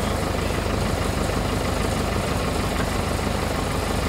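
Someca 715 tractor engine idling steadily, with an even, rapid low pulse.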